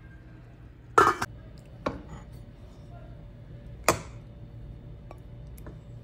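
Kitchen utensils clinking against a steel pot and a ceramic bowl while soup is served: three sharp clinks, about a second in, near two seconds and near four seconds, the first the loudest with a short ring, then a few light ticks.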